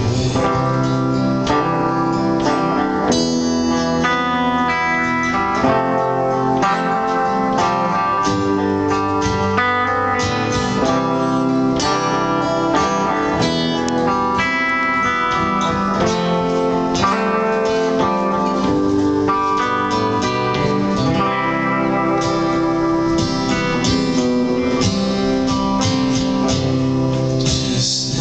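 Two acoustic guitars playing together in an instrumental passage without singing, a busy run of plucked and strummed notes at a steady level.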